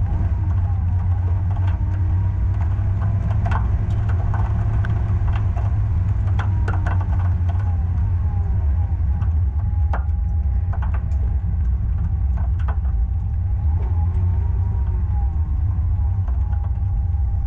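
Car driving through an autocross cone course, heard from a camera mounted outside the body beside the front wheel: a steady, heavy rumble of wind and road noise, with a faint engine note that rises and falls and occasional sharp ticks.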